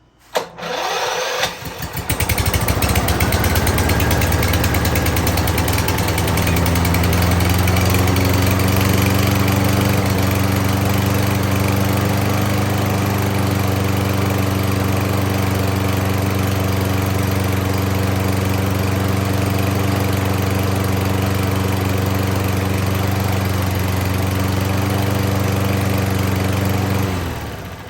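A Lawnboy walk-behind mower's Kohler XT650 149cc engine starts on its electric starter after a brief crank, then runs steadily, settling to an even speed over the first few seconds. It shuts off about a second before the end. The engine had been a no-start and now runs after the repair.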